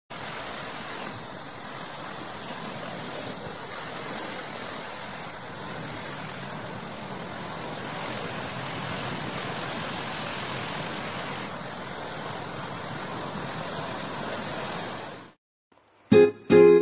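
Ocean surf washing steadily, an even rushing noise that cuts off suddenly about fifteen seconds in. Acoustic guitar strums start just before the end.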